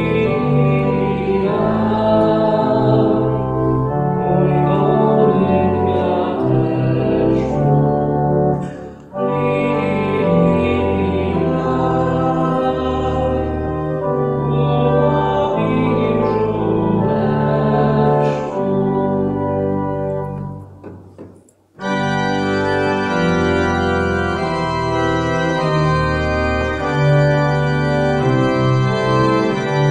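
Church organ playing a carol with sustained chords over a held bass. It breaks off briefly about 9 s in and fades almost to nothing just past 21 s. It then comes straight back in with a fuller, brighter registration.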